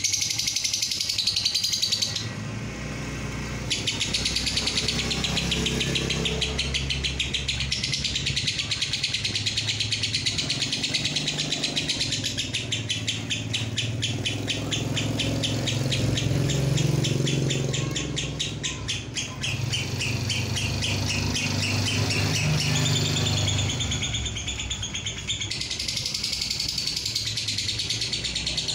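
Fischer's lovebird chattering in a long, fast trill (ngekek): a rapid run of high chirps that carries on for many seconds at a time, with a short break about two seconds in and another a few seconds before the end.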